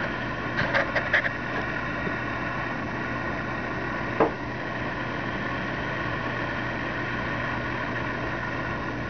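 Steady mechanical hum of room background noise, with a few light clicks about a second in and a single short knock about four seconds in.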